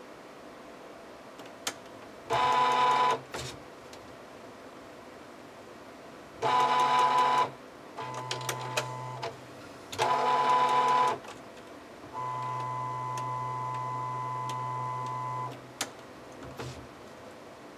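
Epson inkjet printer mechanism running: the print-head carriage motor whirs in three short runs of about a second each. A quieter, steadier motor hum runs for about three seconds near the end, with a few scattered clicks between the runs.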